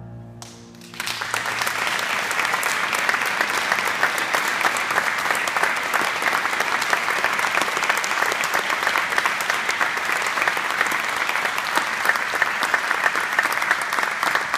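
A large audience applauding, dense steady clapping that breaks out about a second in as a choir's last held chord dies away.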